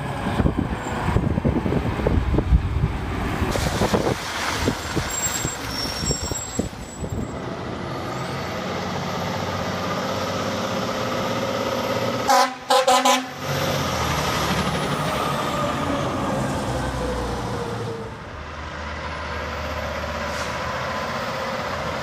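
Aerial ladder fire truck running on the road as it drives by, its heavy engine and road noise loudest early on, with two short air-horn toots about twelve seconds in.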